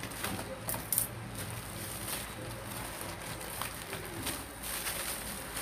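Plastic parcel wrapping being pulled open and handled, rustling and crinkling in irregular bursts with small sharp crackles, loudest about a second in and again near the end.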